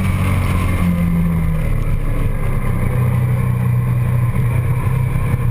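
Motorcycle engine running at road speed, picked up by a camera mounted on the bike's handlebars. The engine note stays low and shifts a little in pitch as the throttle changes.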